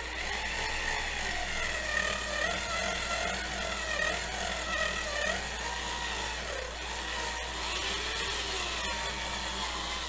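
Small high-speed drill running continuously as it drills out the rivets of a 1:64 diecast toy car. Its high whine holds steady while lower tones waver up and down in pitch as the bit bites and eases.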